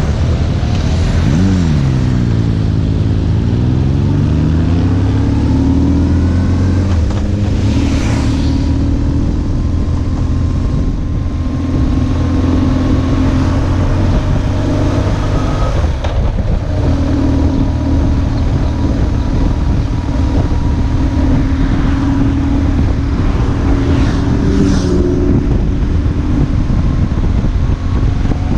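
BMW R1150GS's air-cooled boxer twin running under way. About a second and a half in the revs drop sharply, then climb steadily over several seconds as the bike pulls away again, before settling into a steady engine note.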